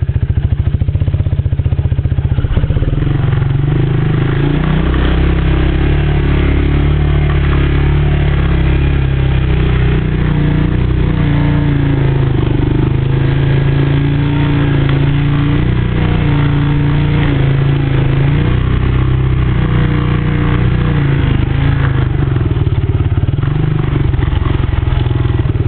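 ATV engine running steadily while riding along a trail, its pitch rising and falling a little with the throttle.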